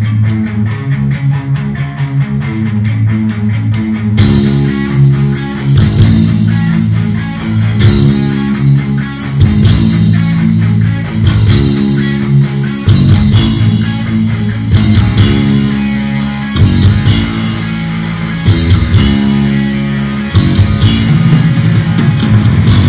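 Live heavy metal band: an electric guitar riff played alone, then drums and bass come in at about four seconds and the full band plays on loud.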